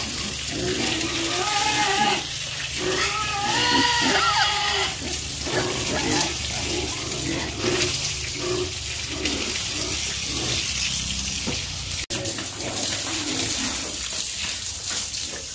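Pigs squealing and grunting: a run of high pitched squeals in the first few seconds, then many short grunts, over a steady rush of water. The sound drops out briefly about 12 seconds in.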